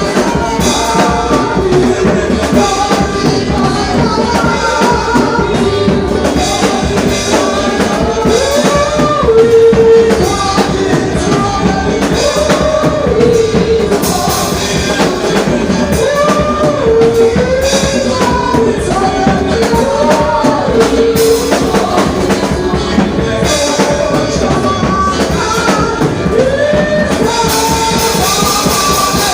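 Live church praise music: singing over a drum kit, bass and keyboard, with a steady beat.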